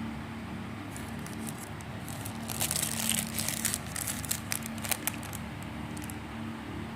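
Packaging being handled, crinkling and crackling in quick irregular bursts for a few seconds, over a steady low hum.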